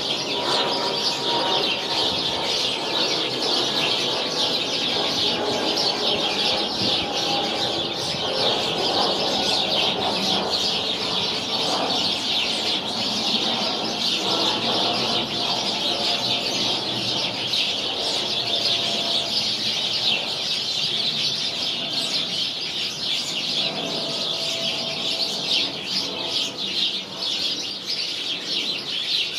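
A flock of sparrows chirping nonstop, many birds calling over one another in a dense, steady chatter.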